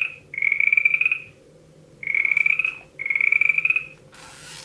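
Recorded frog croaking played by a children's touch-and-feel sound book's speaker: four buzzy croaks, each under a second, in two pairs. A short hiss follows near the end.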